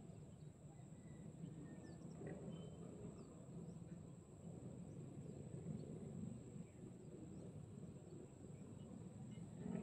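Faint outdoor ambience: a steady high-pitched insect drone with a few brief bird chirps over a low background rumble.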